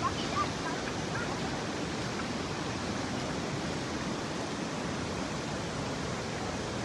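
Steady, even rush of water from heavy rain.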